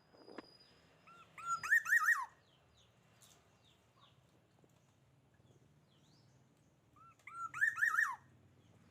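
Kingfisher calling: two short bursts of rapid, chattering notes that arch up and down, about five seconds apart.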